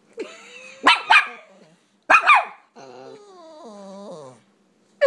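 Small puppies barking: two sharp barks close together about a second in and another just after two seconds, followed by a drawn-out, wavering whine.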